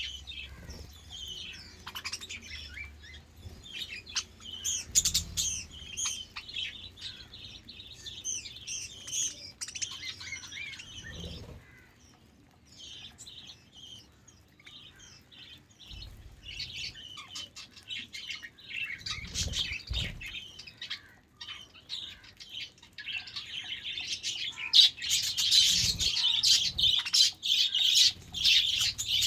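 A group of budgerigars chirping and chattering, thinning out for a few seconds in the middle and busiest near the end, with a few dull low thumps among the calls.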